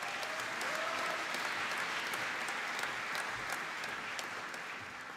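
Audience applauding, a steady clapping that fades toward the end.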